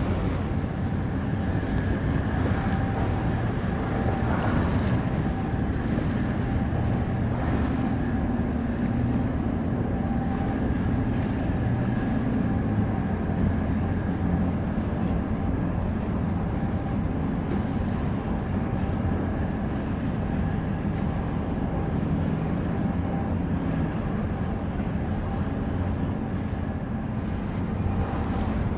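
Steady low drone of the patrol vessel Erimo's engines and shipboard machinery underway, with a faint steady whine above it and a haze of wind and water noise.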